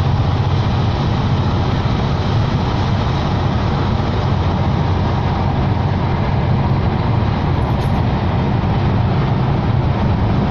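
Steady road and engine rumble of a car at speed, heard from inside its cabin.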